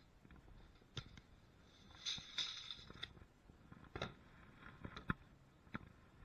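Faint handling sounds of woodworking: a few sharp knocks and clicks, with a short scraping sound about two seconds in.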